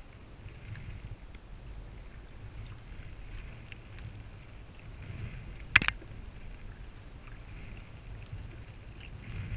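Kayak paddle strokes: the blades dip and splash in the water every second or two over a low rumble of wind on the microphone. A single sharp knock sounds a little past the middle.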